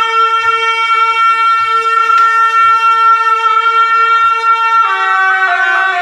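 Bhutanese ritual reed wind music, typical of the jaling (double-reed shawm), holding one long bright note with many overtones. About three-quarters of the way through it breaks into a run of different notes. Faint low drum thuds sound underneath.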